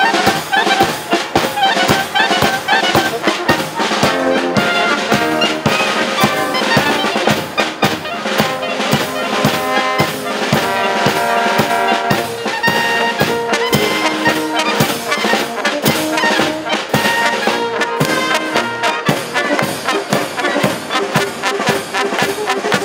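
Bavarian brass band (Blaskapelle) playing live: clarinets, trumpets and tuba over a steady beat from snare drum, bass drum and cymbal.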